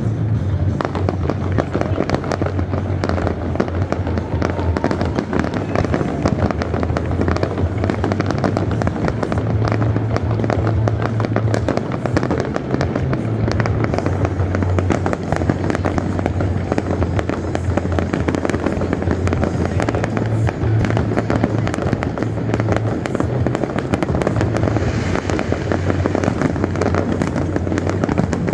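A continuous barrage of fireworks: rapid, overlapping crackles and bangs throughout, over a steady low rumble.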